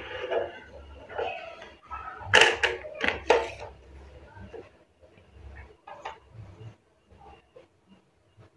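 Lever-arm guillotine paper cutter in use: a quick run of four sharp clacks and cuts a little over two seconds in, then lighter clicks and paper rustling as sheets are slid about on the cutter board.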